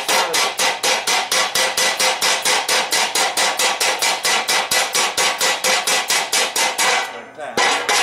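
Rapid hand-hammer blows, about five a second, on a red-hot steel pan blank lying on a flat steel plate, flattening the centre of the bowl. The blows break off briefly about seven seconds in, then resume.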